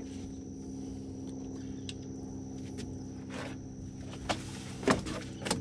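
Boat motor running with a steady low hum, and three short sharp knocks near the end, the middle one the loudest.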